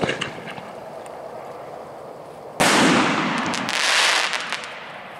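Dominator 2¼-inch preloaded aerial firework shell: the tail of the launch thump from its tube at the very start, then about 2.6 s in a loud, hard break of the shell, its sound fading over about two seconds with crackle.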